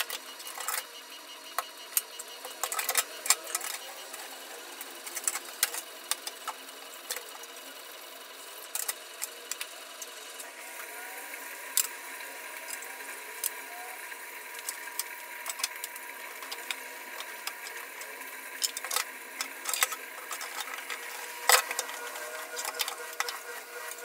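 Irregular clicks, knocks and clatter of plastic fridge containers and packaging being handled and washed at a kitchen sink. A steadier hiss joins about halfway through.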